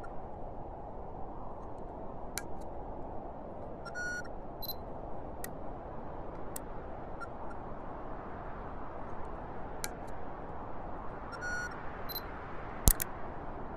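Steady rushing noise with scattered faint clicks and short electronic beeps, twice, and one sharp loud click near the end.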